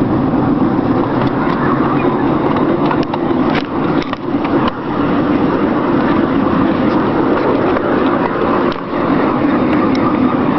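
Miniature railway locomotive running along the track, heard from on board: a steady running noise with a few sharp clicks from the wheels on the rails, most of them about three to five seconds in.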